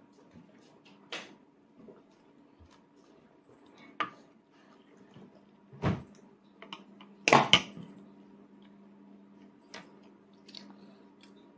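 Sporadic light clicks and knocks of a toddler's spoon against a plastic plate, the loudest a double knock about seven seconds in, over a faint steady low hum.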